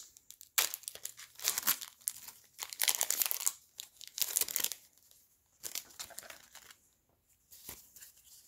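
Foil Pokémon booster-pack wrapper crinkling as it is handled and torn open, in several crackly bursts that are loudest in the first half and fainter after about five seconds.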